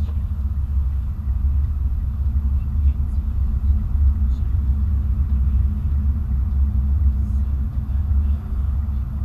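Steady low rumble of a car driving in city traffic, its engine and tyre noise heard from inside the cabin.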